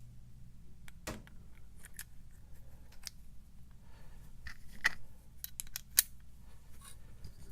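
Small metallic clicks and taps of an American 1100 padlock's parts being handled and fitted back together, scattered irregularly, the sharpest click about six seconds in.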